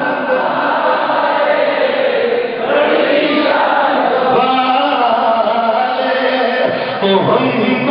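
A man chants through a microphone and PA, drawing out long held notes, while a crowd of men's voices chants along in unison, strongest about three seconds in.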